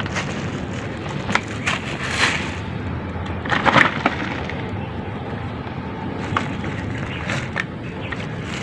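A gloved hand scooping soil, debris and bones out of an opened coffin: rustling and scraping with a few sharper crackles, the strongest about two and four seconds in, over a steady background hiss.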